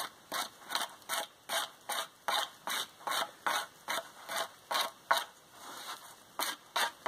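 Sharpened spine of a bushcraft knife scraping bark off a black spruce pole in quick, even strokes, about two and a half a second. The strokes stop for about a second around five seconds in, then start again.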